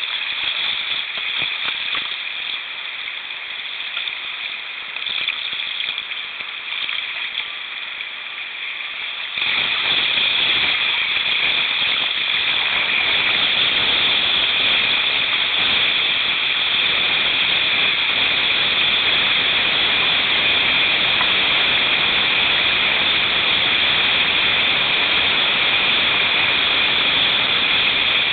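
Creek water rushing over shallow rapids around a kayak, a steady noisy hiss of current and splashing. About nine seconds in it suddenly grows louder and fuller and stays so.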